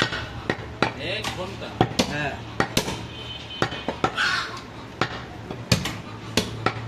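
Butcher's knife knocking against a wooden log chopping block as goat shoulder meat is cut and trimmed: sharp, irregular knocks, about two a second.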